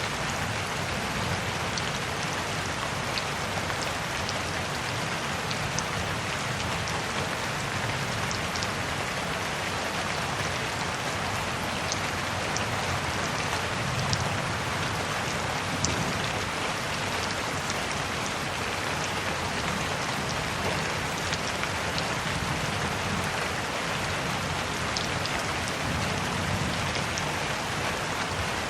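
Steady rainfall, an even hiss with many small drops ticking on a surface.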